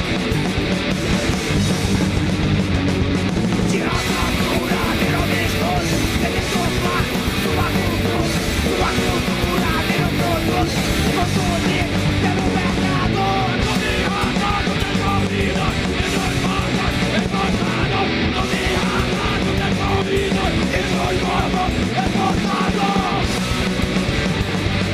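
Punk rock band playing live: electric guitar, bass and drums with shouted vocals, loud and dense throughout.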